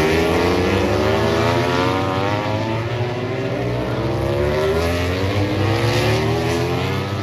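Racing motorcycles accelerating together, their engine notes climbing steadily in pitch over several seconds.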